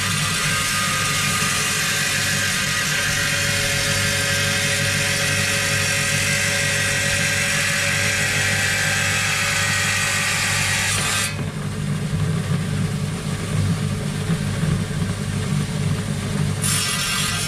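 Bench-mounted wet rock saw running with a steady motor hum, its blade grinding through a fossil nodule with a loud gritty hiss. About eleven seconds in the hiss drops away for around five seconds, leaving the motor and an uneven rumble, then comes back near the end.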